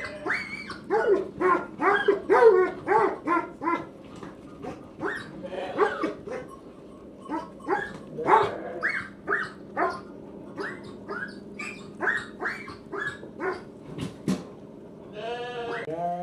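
Rapid series of short pitched animal calls, two or three a second, louder in the first few seconds, with one longer wavering call near the end.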